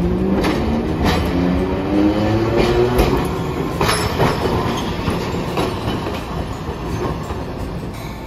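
Hiroden 700-series tram passing close by. Its motor whine rises in pitch over the first few seconds as it picks up speed, and its wheels clack over rail joints and crossings. It fades as it moves away.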